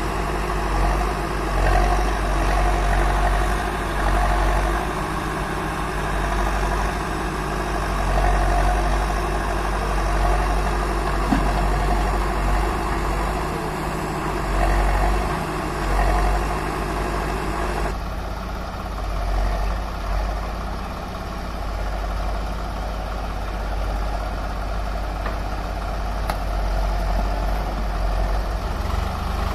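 Diesel engines of a Swaraj 744 FE tractor and a Bull backhoe loader running at idle: a steady low rumble with slight swells in level. The character of the engine sound changes abruptly about two-thirds of the way through.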